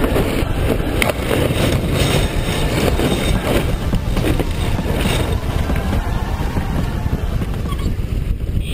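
Wind buffeting the microphone as a steady low rumble, with water rushing along the hull of a sailboat heeled under sail.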